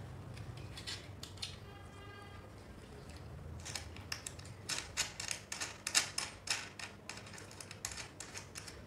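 Irregular metallic clicks and taps from a spanner working the nuts and bolts that hold an electric sewing-machine motor's bracket to the table. The clicks come sparsely at first, then in a quick run through the middle, the loudest a little past halfway.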